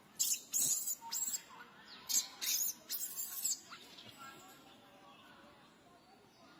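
Young macaque giving a series of shrill, squealing screams over the first three and a half seconds: the protest of an infant being refused the nipple during weaning.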